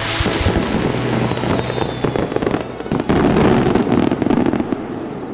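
Fireworks bursting, with dense crackling and a faint falling whistle in the first two seconds. It grows louder about three seconds in, then dies away near the end.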